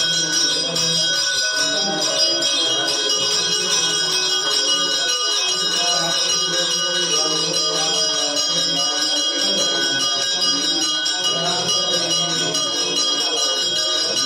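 A temple bell rung over and over, ringing on without a break. Beneath it, a man's voice chants a Sanskrit Shiva prayer.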